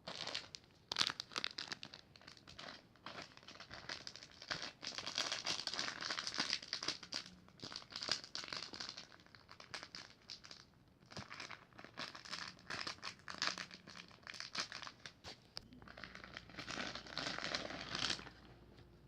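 Packaging being handled and crumpled, with dense crinkling in several stretches and short pauses between them.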